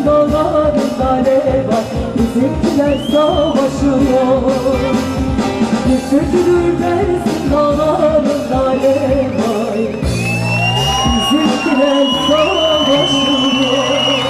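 Live band music: an upbeat folk-style song with a steady drum beat and singing. About ten seconds in, the drums drop back and high held and gliding tones take over.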